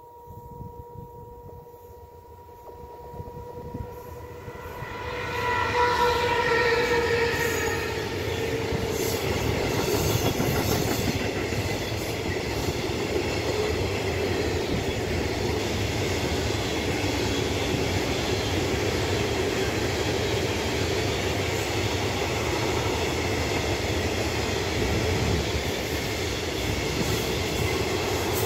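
A freight train of silo wagons behind an electric locomotive rushes past at close range. A steady tone swells as the locomotive arrives about five seconds in, then the long rake of wagons rumbles and clatters by without letup.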